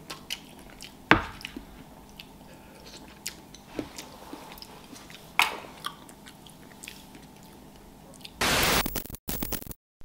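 Chewing with scattered light clicks of a metal spoon against dishes. Near the end a loud burst of hiss lasting just over a second cuts off sharply.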